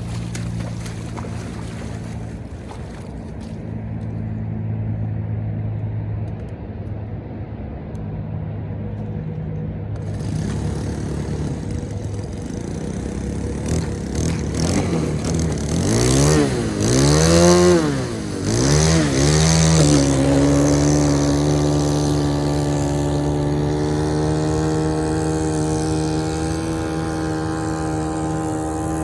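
Small propane-fuelled engine of a homemade RC boat running, low and steady at first, then the revs swing up and down several times and settle at a higher, steady speed.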